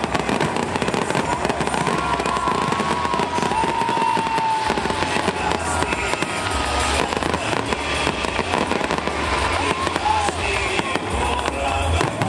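Fireworks display: a continuous barrage of aerial shell bursts and crackling, the bangs following each other so closely that they run together.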